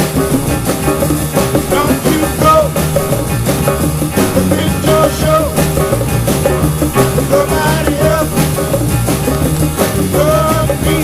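Soul band record playing: drums and bass keep a steady beat under a bending melody line.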